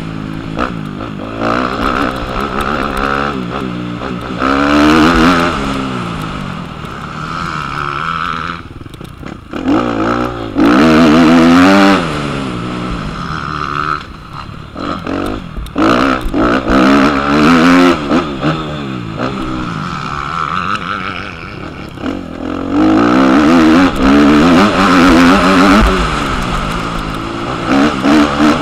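Motocross bike engine heard from on the bike, revving hard and dropping back again and again as the rider accelerates, shifts and rolls off the throttle around a dirt track. It falls away briefly twice, about nine and fourteen seconds in.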